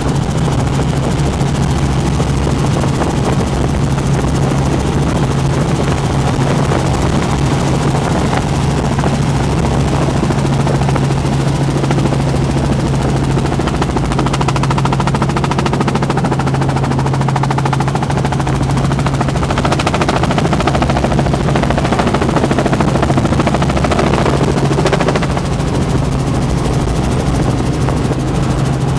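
Helicopter engine and rotor heard from inside the cabin in flight: a loud, steady drone with a strong low hum.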